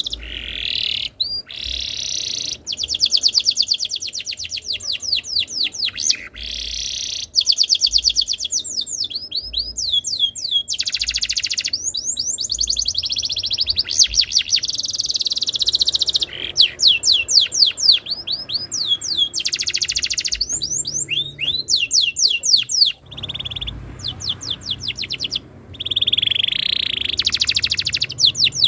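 Domestic canary singing a long, continuous song of fast trills and rolls. The phrases are made of rapidly repeated high sweeping notes, with brief pauses between them.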